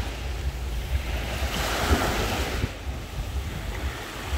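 Small sea waves breaking and washing up the shore, with one wash swelling about a second and a half in and fading away near three seconds. Wind on the microphone adds a low rumble throughout.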